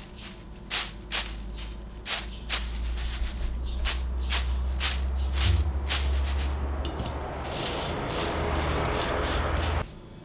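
Dried, roasted lettuce-stem pieces rattling in a stainless steel mesh strainer as it is shaken in a series of sharp strokes to sift out the burnt crumbs. Under the rattling runs a steady low hum and hiss, which cuts off suddenly near the end.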